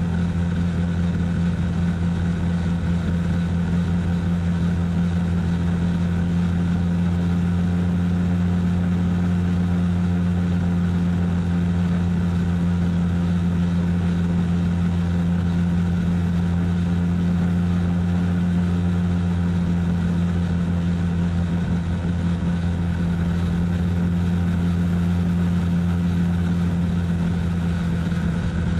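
RC model helicopter running steadily in flight, heard from a camera mounted on the helicopter itself: a loud, even drone of motor and rotor that holds one pitch throughout.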